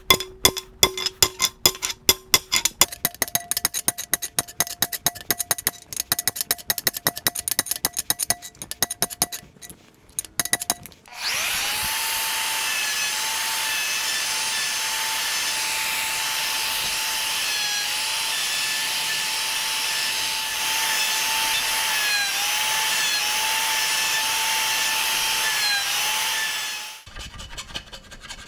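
Rapid light hammer taps ringing on a wagon wheel's steel tire as it is centered on the wooden rim, for about eleven seconds. Then a handheld Bosch router starts abruptly and runs steadily with a constant whine as it cuts along the wooden rim, stopping about a second and a half before the end, followed by faint scraping of a file.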